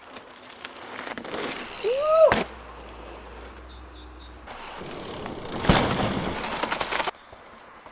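Full-suspension mountain bike ridden along a dirt forest trail: knobbly tyres rolling over dirt. About two seconds in comes a short squeal that rises and falls, ending in a sharp knock, and near six seconds there is another loud hit as the tyres strike the ground.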